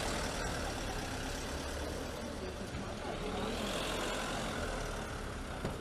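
Van engine idling steadily, with outdoor street noise around it.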